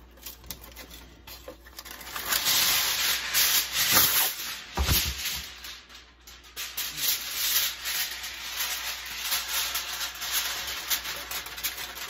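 Aluminium foil crinkling and rustling as a sheet is pulled from the roll and draped over a tray of chicken. It starts about two seconds in and comes in two stretches with a short lull in the middle.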